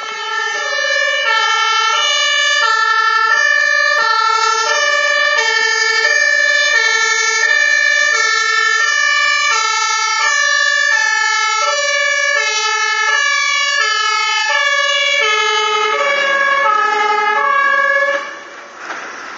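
German two-tone fire-engine horn (Martinshorn) on a MAN TLF 16/25 fire engine on an emergency run, alternating evenly between a low and a high tone, each held about three-quarters of a second. It drops away about a second before the end as the truck passes, leaving a rushing noise.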